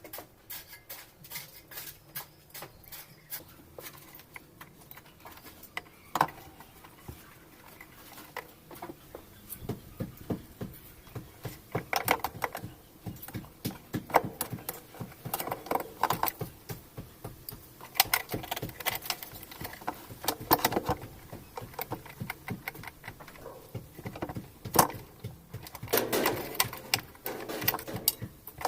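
Irregular clicks, taps and knocks of washing machine parts and tools being handled during repair work, growing busier and louder in the second half.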